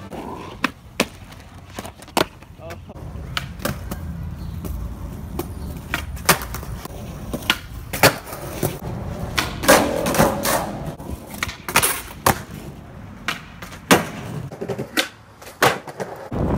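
Skateboard wheels rolling on concrete, broken by many sharp clacks as the board's tail pops and the board lands during flip tricks.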